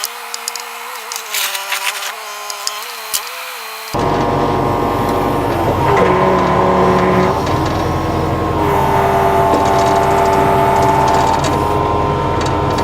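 Engine and hydraulic whine of a digging machine at work, several steady tones stepping up and down in pitch. About four seconds in the sound jumps suddenly much louder and fuller.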